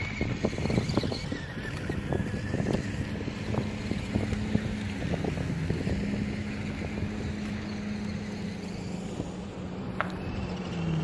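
Brushless electric motor of a 1/4-scale RC dirt bike whining as it runs, the pitch rising and falling with the throttle near the start and again near the end, over a steady low hum. A run of short clicks and knocks fills the first half, with wind on the microphone.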